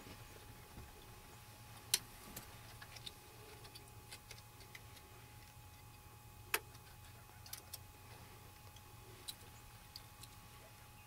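Sparse sharp clicks and ticks, the two loudest about two seconds in and just past the middle, over a faint steady hum.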